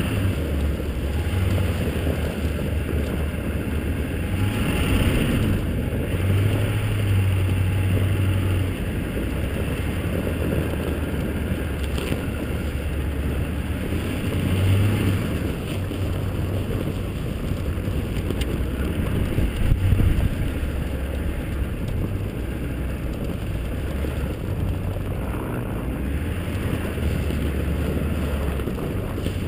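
A 2002 Chevrolet Silverado's Duramax 6.6-litre V8 turbodiesel pickup driving on a snowy track, heard as a steady low rumble. Wind buffets the microphone of the camera mounted on the outside of the truck.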